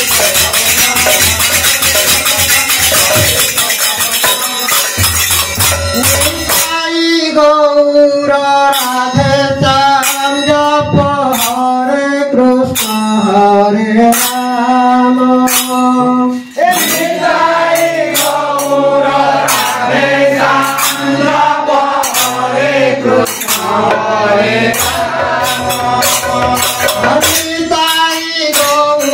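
Devotional kirtan music: a two-headed barrel drum played with dense, bright jingling percussion. From about seven seconds in, a voice sings through a microphone over the drumming and jingling.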